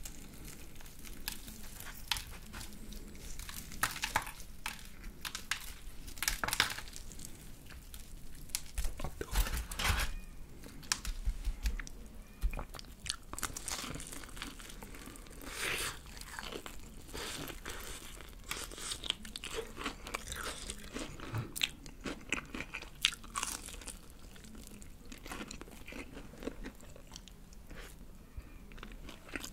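Close-up crunching and chewing of crispy fried chicken: the batter crust crackles in irregular bites and chews.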